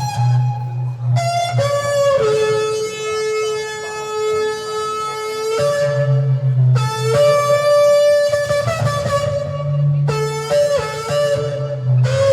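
Music: long held melodic notes, the longest lasting about three and a half seconds, stepping between a few pitches over a steady guitar-like accompaniment.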